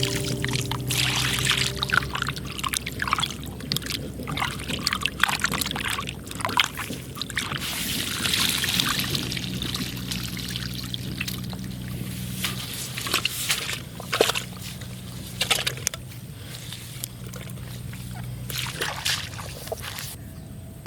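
Water splashing and sloshing in irregular bursts, with pouring and trickling between them, over a faint steady low hum.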